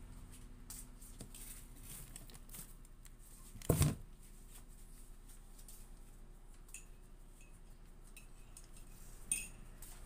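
Kitchen handling clatter: scattered small clicks and knocks of things being moved on a counter, with one loud knock about four seconds in and a sharp, ringing clink near the end.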